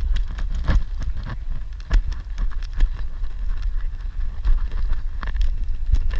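Wind rumbling on the microphone, with irregular knocks and crunches scattered through it.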